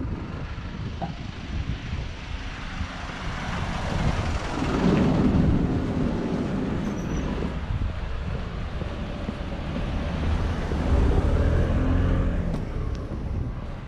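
Street traffic: motor vehicles passing close by, swelling twice, near the middle and again toward the end.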